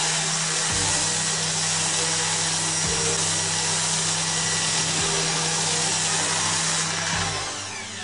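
Electric orbital finishing sander running steadily against the painted sheet-metal door skin, coarse paper and light pressure, sanding over the dent repair to reveal the low spots it doesn't touch. About seven seconds in it is switched off and winds down.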